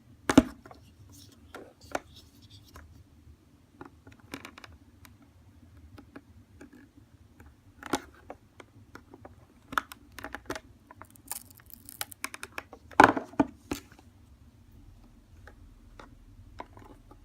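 Scattered clicks and short scrapes of a sharp blade working at a heat-softened glued icon on a plastic sunglasses frame, prying it loose. The loudest knocks come about half a second in and about 13 seconds in, with a brief scratchy scrape just before the second.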